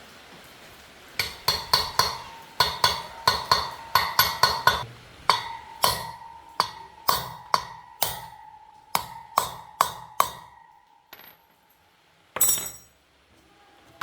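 Metal being struck over and over, probably with a hammer: sharp blows that each ring on with a clear tone, two or three a second, in quick clusters at first and then more evenly spaced, stopping about ten seconds in. A short clatter follows near the end.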